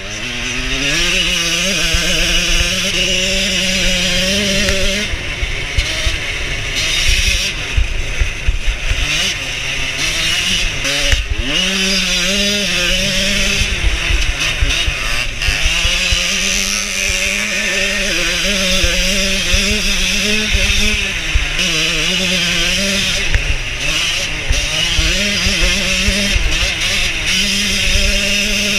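1989 Yamaha YZ125 two-stroke dirt bike engine running hard across a grass track. The revs climb at the start, then drop and pick up again several times as the rider backs off and gets back on the throttle.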